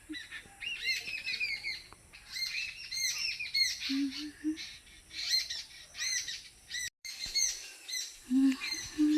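Several small birds chirping rapidly and repeatedly, with short runs of low notes a few times.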